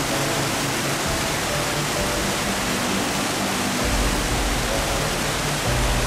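Steady rush of a waterfall pouring over rocks into a pool, with soft background music over it.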